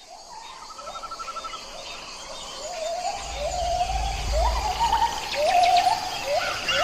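Tropical rainforest soundscape fading in and growing louder: a series of rising whistled animal calls repeated every second or so, with chirps and trills above them and a brief low rumble about halfway through.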